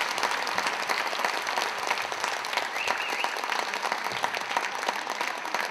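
Concert audience applauding: dense, steady clapping.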